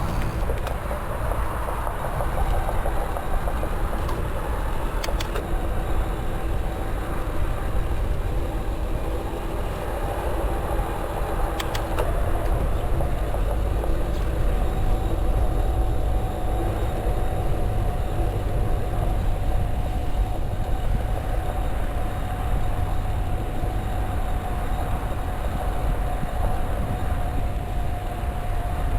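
Canyon Roadlite:ON 7 e-bike with its Fazua Drive 60 mid-drive motor on the move: steady low rumble with a steady motor whine, and a few sharp clicks, two about five seconds in and one near twelve seconds. This is the drive's rattling noise under investigation.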